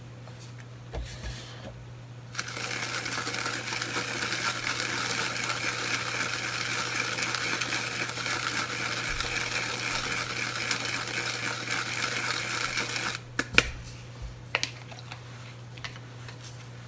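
Handheld sesame grinder being twisted, grinding toasted sesame seeds: a steady gritty crunching that starts a couple of seconds in and lasts about ten seconds. A few light clicks follow near the end.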